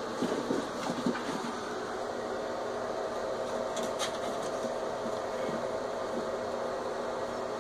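A steady hissing hum with a few faint clicks and taps over it, most of them in the first second or so.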